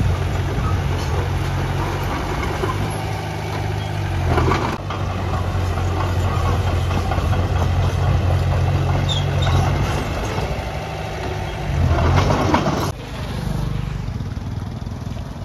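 Heavy diesel engine of earthmoving machinery running steadily at a low, even pitch. There is a short louder rush of noise about four seconds in and another, longer one around twelve seconds in, after which the engine sounds quieter.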